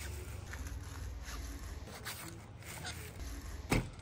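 Folding chair being handled and unfolded: light rattling, scraping and clicks of its frame, with one sharp louder click near the end.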